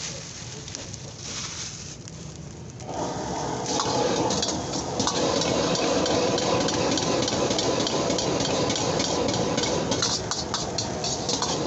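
Metal ladle scraping and knocking against a wok as rice and egg are stir-fried and tossed. A gas wok burner starts a loud steady roar about three seconds in.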